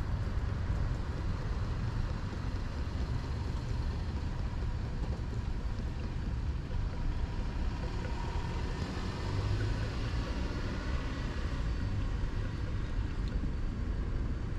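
Motor oil glugging as it pours from a tipped quart bottle into an engine's oil filler, over a steady low rumble.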